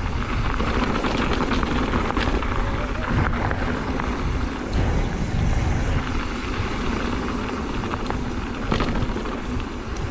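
Wind rushing over the helmet-camera microphone and knobby tyres rumbling on the dirt trail as a mountain bike rolls at about 16 mph, with a few sharp rattles from bumps.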